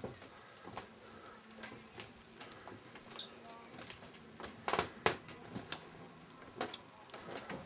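Scattered light knocks and clicks, with a cluster of louder ones about five seconds in, over faint background voices.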